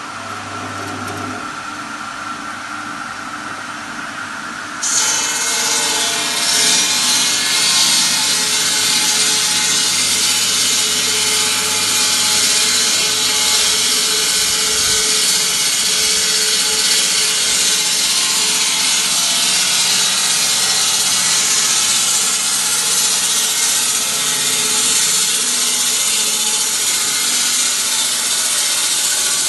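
Electric 220 V stone-cutting machine running, its motor humming steadily; about five seconds in the blade bites into a stone block and a loud, gritty cutting hiss takes over and continues steadily.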